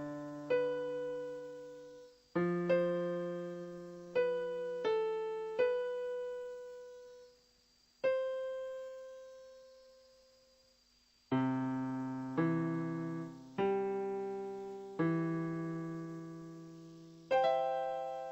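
Solo piano music: slow, spaced-out chords and single notes, each struck and left to ring and fade away.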